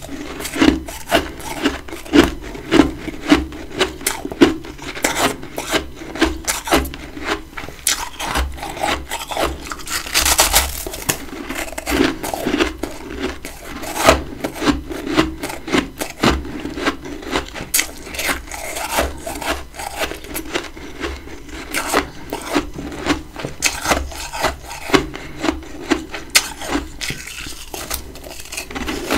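Close-up crunching of chunks of freezer frost being chewed: a run of crisp crackles with a sharper crunch about every half second to a second.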